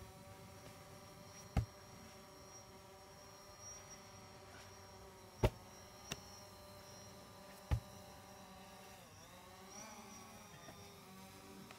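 A steady buzzing hum of several tones that dips and rises in pitch about nine seconds in, broken by four sharp knocks from heavy training balls and sandbags being handled and dropped on artificial turf.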